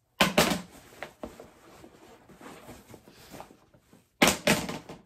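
An embroidery hoop being taken off a T-shirt: a sharp clack and rustle of fabric at the start, a few small knocks, soft handling rustle, then two louder bursts of handling noise near the end.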